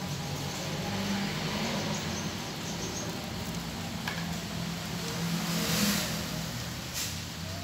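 A motor or engine running at a steady low pitch under a hiss, the hiss swelling about six seconds in.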